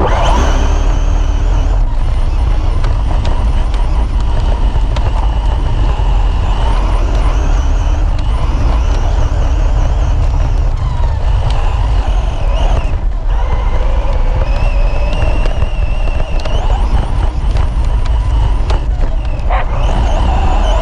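Electric RC short-course buggy's motor whining, its pitch rising and falling as the throttle changes, over a heavy low rumble.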